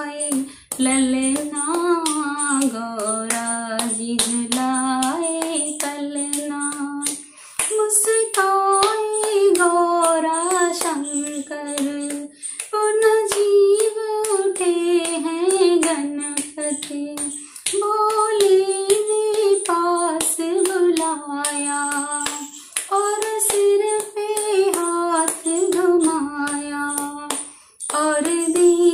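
A woman singing a Hindi devotional bhajan solo, in sung lines of about five seconds with short breaks between them, over sharp regular clicks keeping time.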